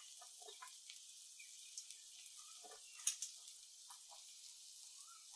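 Sweet corn kernels scooped by hand off a steel plate and dropped into a stainless steel pot: faint scattered ticks and light clicks, with one sharper click about three seconds in. Under them is a faint sizzle from the vegetables sautéing in butter.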